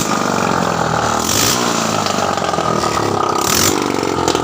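Vehicle engine running and being revved with its silencer removed, so it sounds loud and open. Hiss comes through in short bursts twice. Running freely without the silencer, it shows the silencer is choked with oil.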